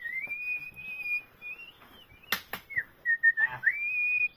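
A person whistling a slow tune of long held notes with slides between them. Two sharp cracks come a little past halfway.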